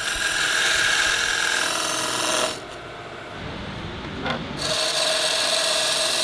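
Carbide-insert wood-turning chisel cutting a spindle spinning on a wood lathe: a rough scraping hiss over a steady tone. The cutting drops away for about two seconds in the middle, then comes back just as loud.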